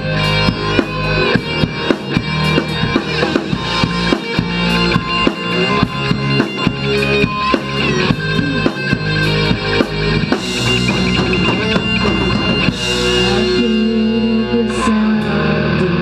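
Rock music with a drum kit and guitar: fast, steady drum hits for most of the first ten seconds, then heavier sustained playing with cymbal crashes.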